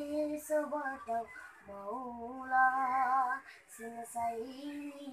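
A young boy singing a Nepali song, holding long notes with a wavering pitch in short phrases broken by brief pauses for breath.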